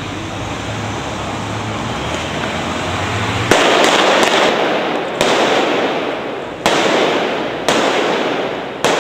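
Five sharp handgun blank shots, irregularly spaced about one to one and a half seconds apart and starting about three and a half seconds in. Each shot rings on in a long echo off the surrounding buildings.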